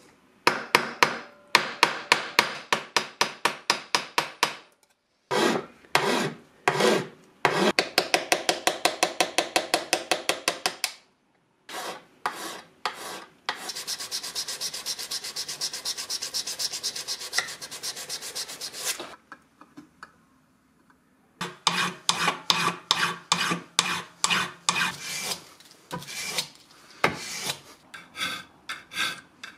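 Hand file rasping on brass clamped in a bench vise: runs of quick, even strokes, several a second, with a denser, finer stretch in the middle and a brief pause about twenty seconds in.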